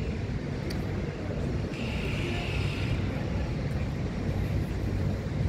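Steady low rumble of city traffic, with a brief faint hiss about two seconds in.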